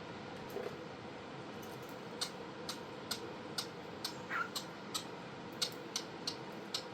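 Pet cockatiel giving one brief soft chirp about four seconds in, over a run of small sharp clicks, about two a second, that start about two seconds in, and a faint steady hum.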